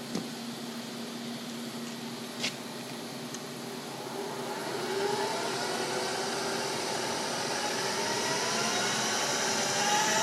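Harrison Alpha 550 CNC lathe spindle running up in its middle speed range, a whine from the headstock rising in pitch and getting louder from about four seconds in. Two sharp clicks come before it, one at the very start and one about two and a half seconds in.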